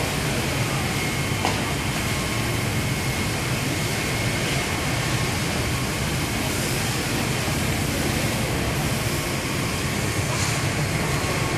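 Steady, loud rushing noise of a burning car being hosed down by firefighters, with water spray hitting the fire and sending up steam.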